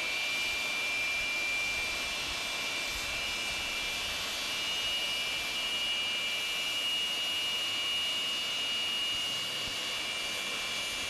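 Jet engines of a large four-engined turbofan transport running, a steady high whine over a broad even rush.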